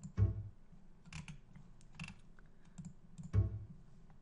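Sharp clicks from a computer mouse and keyboard on a desk, with two heavier thuds about a quarter of a second and three and a third seconds in.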